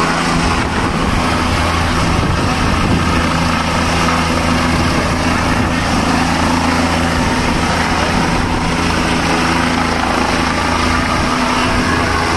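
Helicopter coming down low to land, its rotor and turbine making a loud, steady drone.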